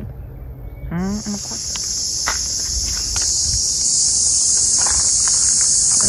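Insects shrilling in a steady, high-pitched drone that starts about a second in and grows louder.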